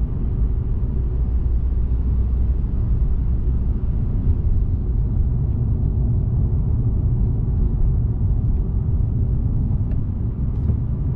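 Car driving along a road, heard from inside the cabin: a steady low rumble of engine and road noise that stays even throughout.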